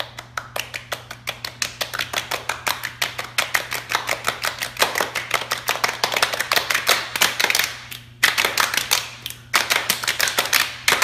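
A circle of children's hands rapidly slapping a wooden floor in a drumroll that gets faster and denser. It stops briefly about eight seconds in and starts again.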